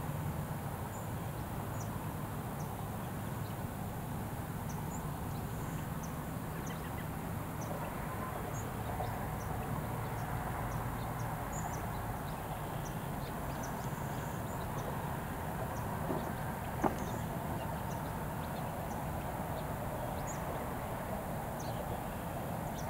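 Outdoor ambience: a steady low rumble with scattered faint, short, high chirps, and a single sharp click about seventeen seconds in.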